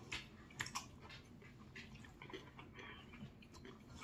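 Faint mouth sounds of a person eating jjajangmyeon: small wet clicks and smacks of slurping and chewing noodles, scattered irregularly.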